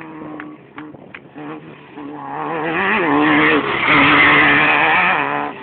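Desert off-road race buggy approaching at speed and passing close by, its engine note growing louder from about two seconds in, wavering in pitch, loudest as it goes past, then dropping off sharply near the end.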